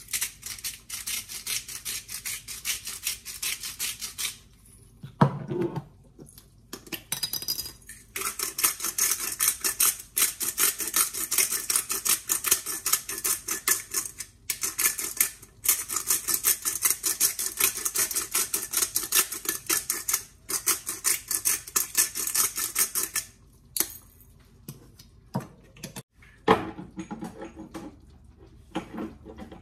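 Hand-twisted grinder cracking coarse Himalayan salt: long runs of rapid, fine crackling clicks, each lasting a few seconds, with short pauses between them. A few separate knocks near the end.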